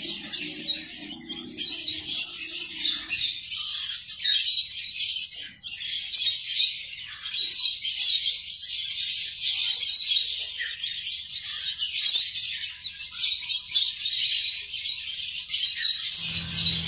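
Ducklings and chicks peeping together, a dense, continuous chorus of high-pitched cheeps.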